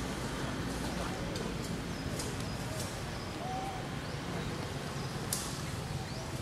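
Outdoor background sound: a steady low hum with scattered short, faint chirps and a few brief high ticks.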